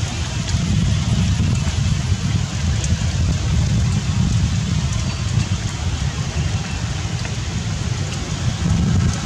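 Steady rain falling, an even hiss with a few faint drop ticks, over a low rumble of wind on the microphone.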